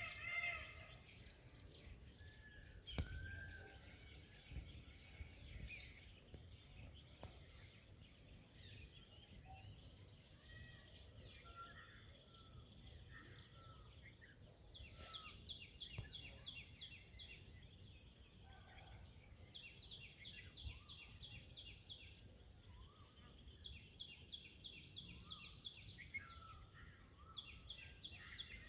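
Faint jungle ambience: small birds chirping, with repeated rapid trills, over a steady high insect whine. A single sharp tick comes about three seconds in, and the tail of a louder, evenly pitched call fades out at the very start.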